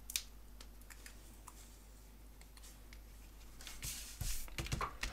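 Faint paper handling: small clicks and rustles of fingers fixing a small paper die-cut onto a card stock card. Near the end comes a louder stretch of rustling and taps as both hands press the card flat on the craft mat.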